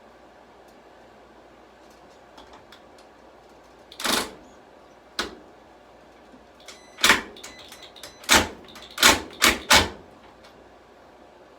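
A power drill run in about seven short, sharp bursts on a screw whose head is stripping, the bit slipping and grinding in it. The bursts come in the middle and near the end, the last few quickly one after another.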